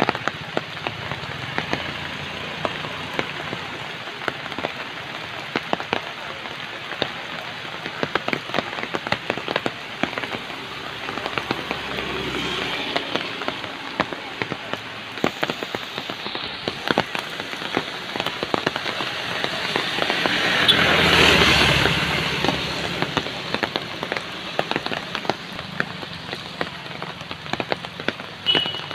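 Heavy monsoon rain falling steadily, with many sharp drop impacts close by. It swells louder for a couple of seconds about two-thirds of the way through.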